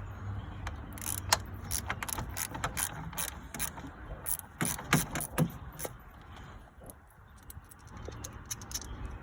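Ratchet wrench with a 10 mm socket working a bolt: bursts of sharp pawl clicks at uneven spacing, a few louder ones about five seconds in.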